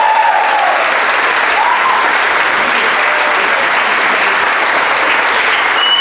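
Audience applauding and cheering, with a couple of voices calling out in the first two seconds.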